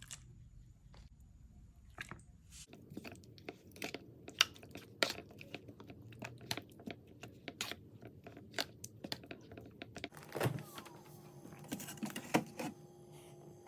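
Irregular light clicks and knocks, with a faint steady hum underneath; a couple of steady tones come in about ten seconds in.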